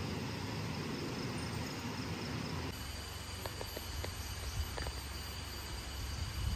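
A steady rush of a shallow stream running over rocks. About three seconds in it gives way to forest ambience: a steady high insect drone over a low rumble, with a few short chirps or ticks.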